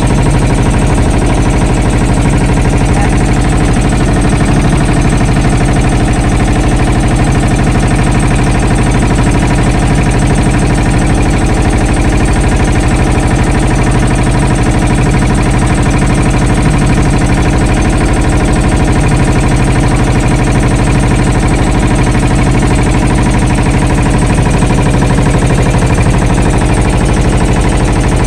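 Passenger boat's motor running loud and steady while under way, with no change in pitch.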